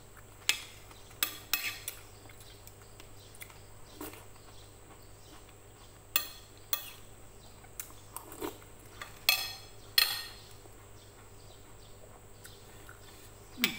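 Metal spoon and fork clinking and scraping against a ceramic plate while eating, in sharp irregular clinks a second or so apart, with a few quieter seconds near the end.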